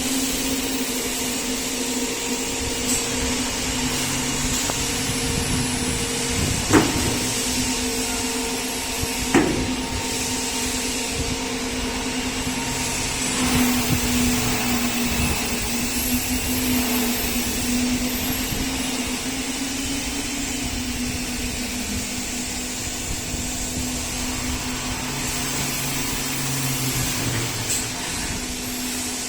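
Aluminium-profile CNC milling machine running, a steady motor whine over a hiss. Two sharp knocks come about seven and nine seconds in.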